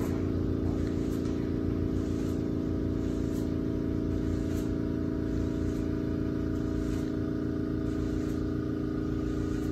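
A steady machine hum made of several held tones, with faint soft ticks about once a second.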